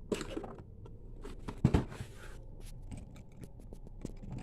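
Light scrapes and small clicks of plastic as an action figure is handled and worked at in its packaging, with one louder knock about two seconds in.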